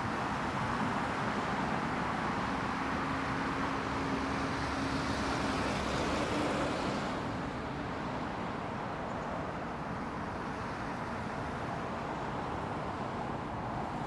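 Steady outdoor rumble of distant engines, with a faint low hum that fades out about seven seconds in, where the rumble eases a little.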